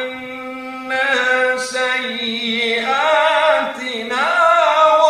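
A single voice reciting the Qur'an in melodic chanted style (tajweed), drawing a vowel out in one long held note for nearly three seconds before the pitch glides and a new phrase begins.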